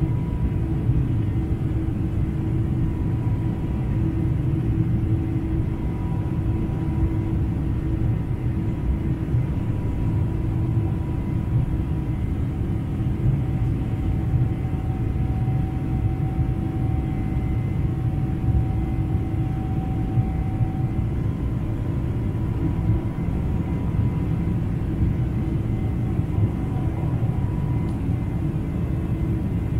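Cabin noise of a Boeing 747-400 climbing after takeoff, heard from a window seat over the wing: the General Electric CF6-80C2 turbofans and the airflow make a deep, steady rumble. A few faint steady tones hum above it.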